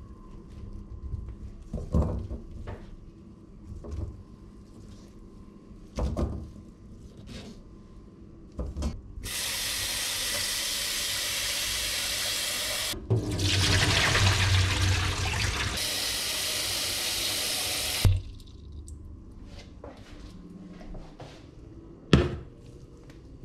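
Kitchen tap running into a stainless steel pot of cauliflower florets for about nine seconds, its sound turning fuller and lower about halfway through. Before and after it come scattered knocks of the pot and florets being handled, with a sharp clank near the end.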